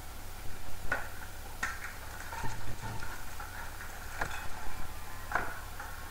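Steady low hum with a handful of short, sharp clicks scattered irregularly through it.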